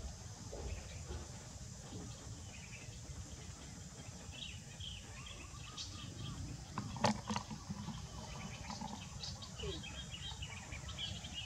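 Faint, scattered bird chirps over a low, steady rumble, with one sharp knock about seven seconds in.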